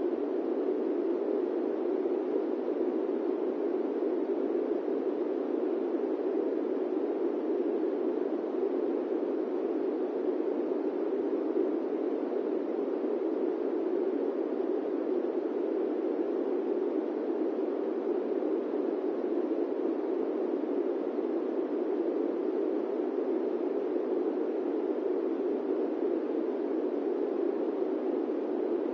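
Electric fan running, a steady even rushing noise with most of its weight in the lower middle range and no changes.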